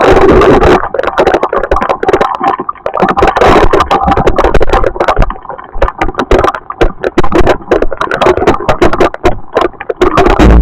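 Storm noise, very loud: rapid, irregular hard knocks pelting against something, over a steady rushing noise.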